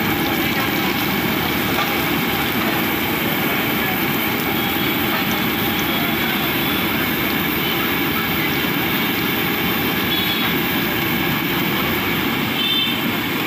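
Samosas deep-frying in a large wok of hot oil, sizzling and bubbling steadily over a continuous low rumble.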